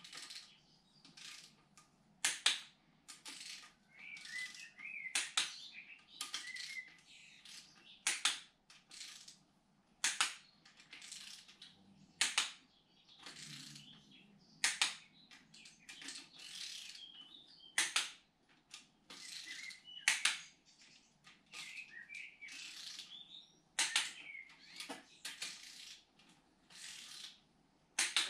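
Hand ratchet wrench working bolts in repeated short strokes. Each stroke is a burst of rapid clicking ending in a sharp click, about every two to three seconds.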